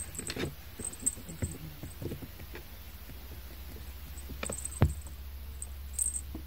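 A black cat scrabbling and batting at a wand toy on a carpeted cat tree: soft, irregular scratches and knocks, with one louder thump about five seconds in, over a faint steady low hum.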